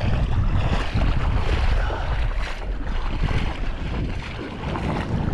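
Wind buffeting the microphone as a steady low rumble, with water sloshing and splashing in the shallows around a wading angler. Both ease a little near the end.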